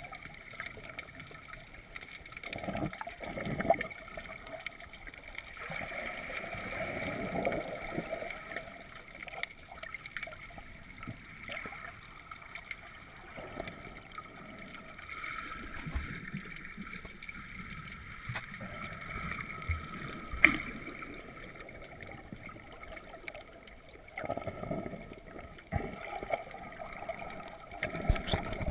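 Muffled underwater sound heard from a GoPro camera submerged in shallow water: water sloshing and gurgling that swells and fades, with a few knocks, the sharpest about twenty seconds in.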